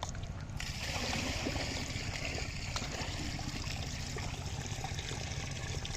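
Water running and trickling, starting suddenly about half a second in and continuing steadily, over a low steady rumble.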